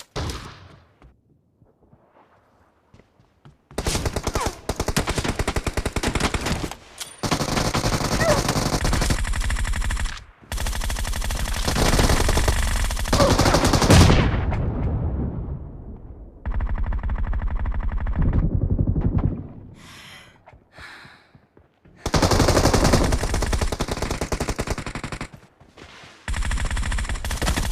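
Bursts of rapid automatic gunfire, each lasting a few seconds, about five in a row with short breaks between.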